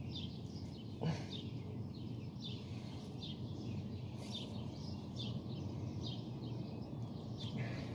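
Birds chirping: short falling chirps repeated over and over, over a steady low outdoor background rumble, with a single brief knock about a second in.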